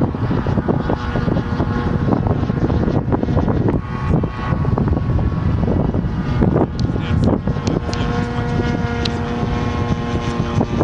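Wind buffeting the microphone, over the steady drone of a radio-controlled model aeroplane's engine flying overhead.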